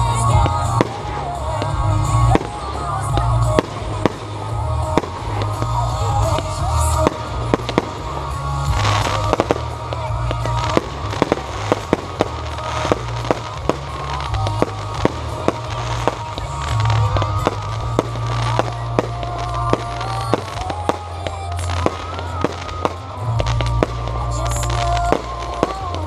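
Fireworks display: aerial shells bursting in a rapid run of sharp bangs and crackles, thickest in the second half. Music with a heavy bass and a melody plays throughout.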